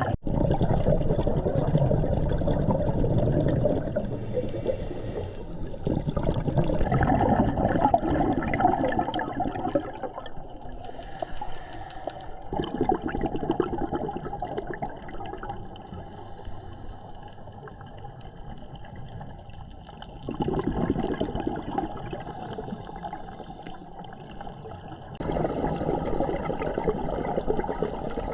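Sea water sloshing and washing, in several stretches that change loudness abruptly.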